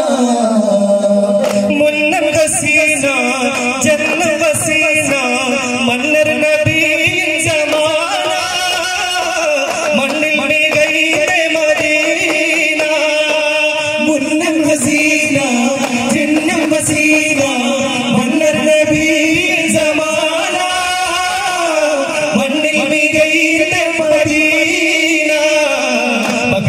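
Daf muttu: men singing a devotional song over daf frame drums struck in a steady rhythm.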